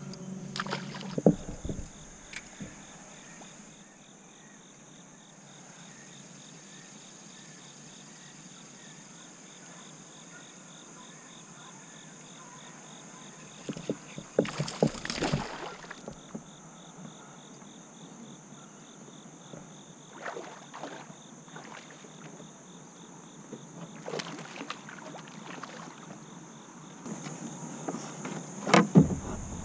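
Quiet river ambience heard from a fishing kayak: a steady high insect trill under a faint hiss, broken a few times by short splashes and knocks of water and gear against the kayak, the loudest a little before halfway and near the end.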